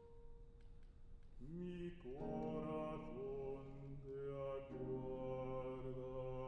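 A single classical guitar note rings on alone, then about a second and a half in a baritone voice enters and sings long held notes with vibrato over the guitar.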